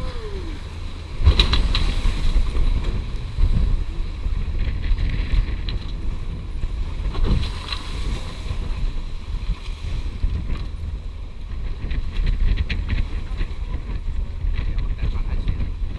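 Wind buffeting the microphone aboard a sailing catamaran under way, a steady low rumble with water rushing past the hulls, broken by a few thumps about a second in, a few seconds in and about halfway through.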